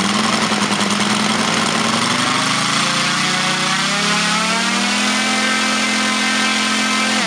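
Moki 150cc five-cylinder radial engine on a large model aeroplane running at raised throttle during a ground run, propeller spinning. Its pitch holds steady, then climbs gradually through the middle as the revs come up, stays high, and falls away sharply at the very end as the throttle is pulled back.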